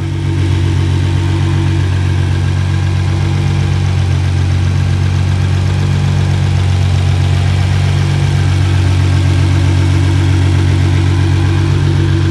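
Full bolt-on 2009 Nissan GT-R's twin-turbo 3.8-litre V6 idling steadily, heard with the hood open.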